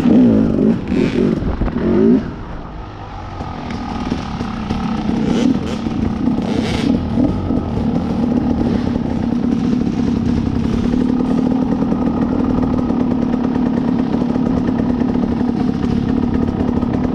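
Two-stroke dirt bike engine under way on a rough trail. It revs up and down in quick blips for the first couple of seconds, drops back, then builds and runs steadily on the throttle. A few sharp knocks come around the middle.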